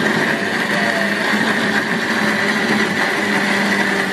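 Small electric blender's grinder jar running steadily, held down by hand, its motor giving an even hum with a high whine as it grinds fresh red chilies into a paste.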